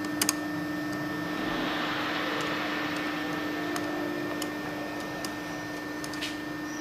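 Steady hum with a hiss that swells for a couple of seconds in the middle. A couple of sharp metal clicks come just after the start, as a screwdriver turns the screws of the electrode holder on a conductor welding machine.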